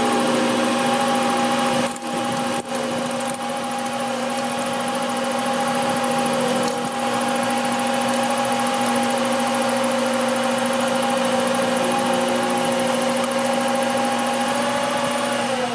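A workshop machine's motor running steadily with a constant hum, slowing down near the end.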